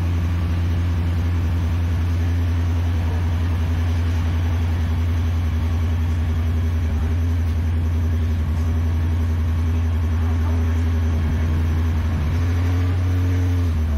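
A diesel multiple unit's underfloor engine drones steadily and low, heard from inside the carriage as the train moves off along the line. The engine note eases right at the end.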